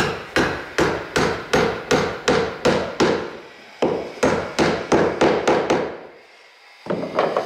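A hammer nailing the sliding glass door's frame to the wood framing: a steady run of about fifteen ringing blows, about two and a half a second. They stop about six seconds in.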